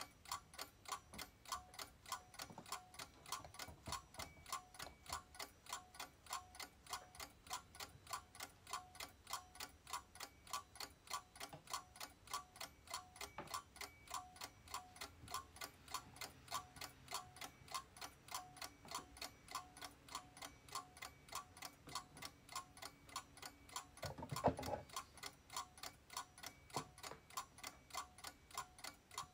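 A clock ticking steadily and evenly, a couple of ticks a second, with a single brief louder knock near the end.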